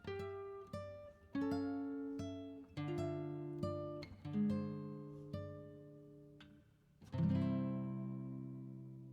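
Background music on acoustic guitar: single plucked notes and short phrases, then a louder strummed chord about seven seconds in that rings on and slowly fades.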